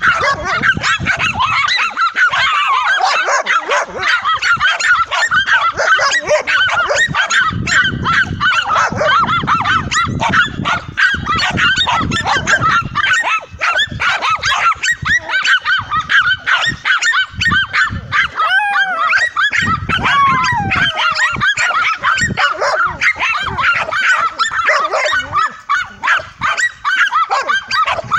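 Several dogs barking and yapping rapidly and without let-up as they bait a tegu lizard. A couple of falling whines come about two-thirds of the way in.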